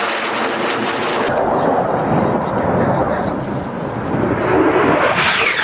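Saab JAS 39 Gripen fighter's jet engine, a loud rushing roar, with its whine sliding down in pitch near the end as the jet passes.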